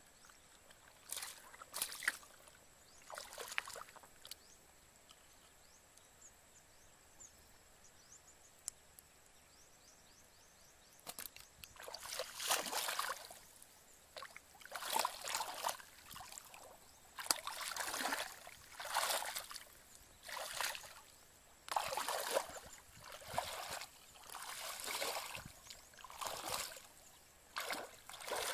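Bare feet wading through shallow muddy water, a slosh with each step. A few splashes come in the first seconds, then a lull, then a regular run of steps about one a second through the second half.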